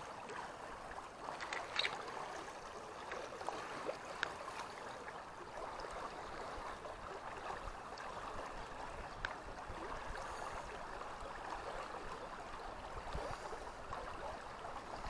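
Water of a small creek running steadily, with a few faint clicks now and then.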